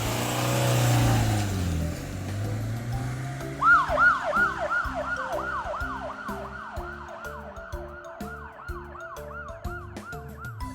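Cartoon police car siren sound effect: a fast yelping wail, about three sweeps a second, starting a few seconds in after a short whoosh and slowly fading, over children's background music.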